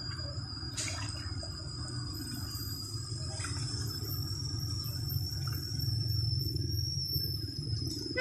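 Steady high-pitched whine of a backpack electrofishing unit running as its poles are swept through the water, over low sloshing and swishing of wading in shallow mud and water.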